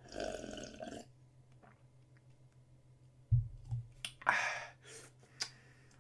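A person swallowing a drink from a plastic cup for about a second, then the cup set down on the table with a low thump a little after three seconds in. Short breathy mouth sounds and small clicks follow.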